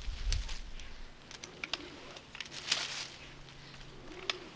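Climbing rope being hand-pulled through an ISC D4 auto-locking belay device to take up slack: scattered small clicks from the device and short rustles of rope, with a low thump near the start.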